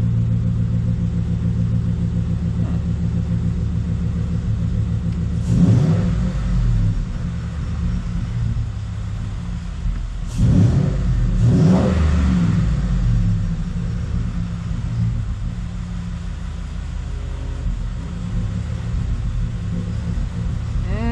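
2014 Ford F-150's engine idling steadily, revved briefly about five seconds in and twice more around ten to twelve seconds in. The owner feels there may still be a slight misfire after reseating loose ignition coil connectors.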